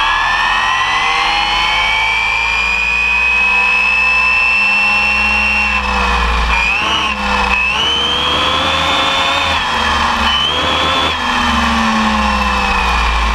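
Onboard sound of an Arrma Typhon 6S electric RC buggy at speed: a high whine from its brushless motor and gears. The whine climbs slowly, dips and comes back up twice in the second half as the throttle eases and returns, then falls near the end, over a rumble of tyres on asphalt.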